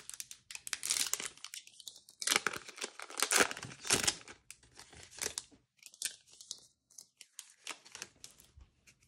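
A Yu-Gi-Oh Maximum Gold booster pack's foil wrapper being torn open and crinkled by hand. Dense crackling is loudest over the first four seconds or so, then thins to lighter, scattered crinkles.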